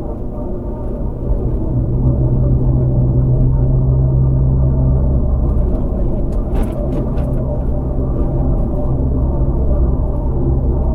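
Land Rover Freelander driving, its engine and road noise a steady low drone that grows louder about a second and a half in. A few short clicks sound around the middle.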